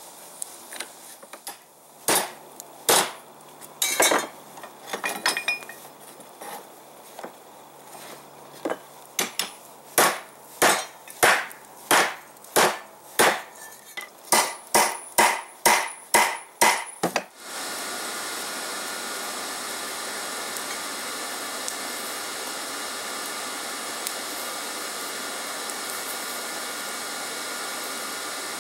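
Hand hammer striking hot steel on a railroad-rail anvil, a few uneven blows and light taps and then a regular run of about one and a half blows a second. About seventeen seconds in the hammering stops and a steady, even rushing noise takes over.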